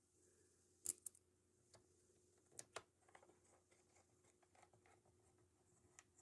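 Near silence with a few faint, sharp clicks, a pair about a second in, another pair under three seconds in and one near the end: a small screwdriver driving the screws back into a laptop's bottom cover.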